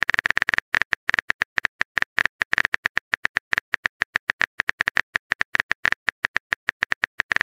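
Smartphone keyboard typing sound effect: quick, irregular tapping clicks, about ten a second.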